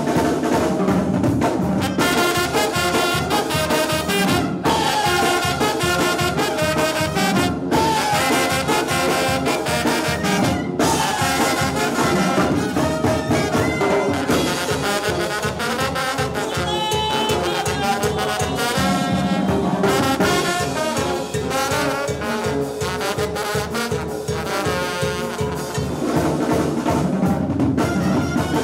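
Brass-led dance music: trumpets and trombones playing the melody over a steady beat.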